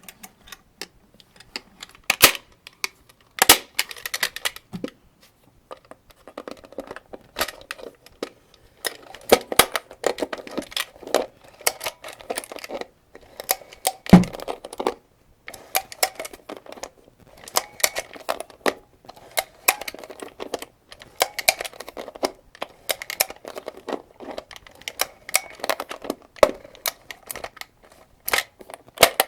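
Cartridges being loaded into a 75-round AK-47 drum magazine: irregular sharp metallic clicks and short rattles, with one heavier knock about fourteen seconds in.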